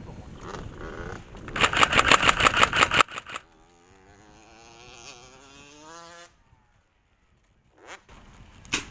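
Airsoft electric gun firing a full-auto burst of about ten shots a second for roughly a second and a half. After it, an off-road motorcycle engine runs with its pitch wavering, turned down in volume, and cuts off suddenly.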